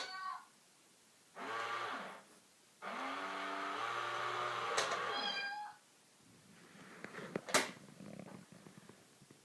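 Cat vocalising: a short meow about a second and a half in, then a long, drawn-out yowl of about three seconds. Then scuffling sounds, with one sharp knock near the end.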